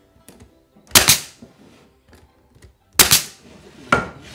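Three sharp strikes as nails are driven into solid-wood floorboards: one about a second in, then two close together near the end.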